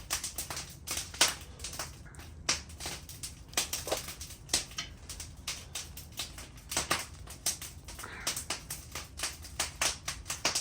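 Torque wrench ratcheting in short strokes, a long run of irregular sharp clicks, several a second, as bolts on the timing set are run down to 26 lb-ft.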